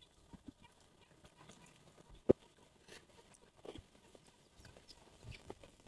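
Close-up mukbang eating sounds: soft wet chewing and mouth smacks as soft egg yolks in chili sauce are eaten from a spoon, with one sharp click about two seconds in.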